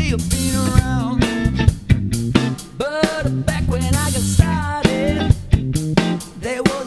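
Band playing: drum kit with cymbals, electric bass and electric guitar over a steady beat, with a melody line above that bends in pitch.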